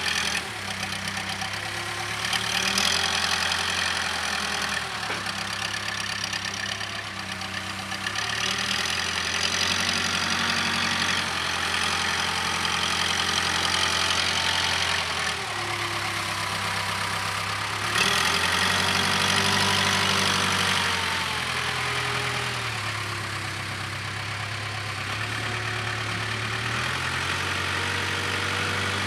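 Case 580K backhoe's diesel engine running under working load, its note stepping up and down every few seconds as the machine digs and moves material.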